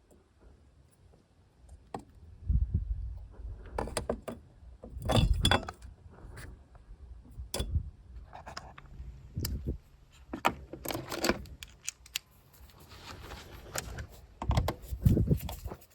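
Metal tools and parts clinking and rattling as they are handled, in irregular bursts with scattered knocks and scrapes.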